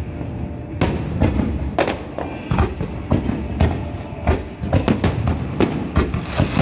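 Fireworks finale barrage: aerial shells bursting in a rapid, irregular string of bangs over a continuous low rumble, the bangs coming thicker from about halfway through.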